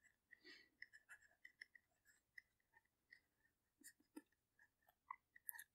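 Near silence, with faint light taps and scratches of a stylus writing on a tablet screen.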